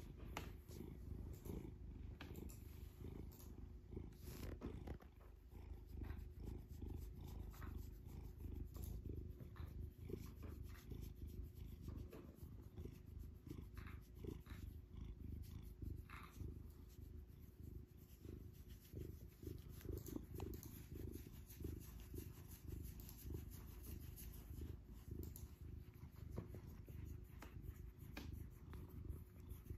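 Domestic cat purring steadily close to the microphone, a continuous low rumble, with light rustles of fur as its head is stroked.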